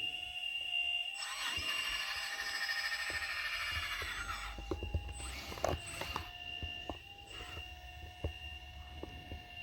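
Radio-controlled hydraulic construction model working, its hydraulic pump giving a steady high whine. A louder whirring comes in about a second in and fades out around four seconds, with scattered small clicks and knocks throughout.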